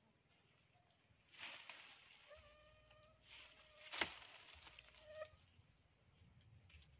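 A faint rooster crowing: one long call held at a fairly steady pitch for about three seconds. Around the middle there is a sharp click, and just before the call a brief rustle.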